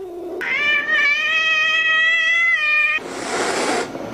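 White domestic cat giving one long, level meow of about two seconds, followed by a brief hiss about three seconds in.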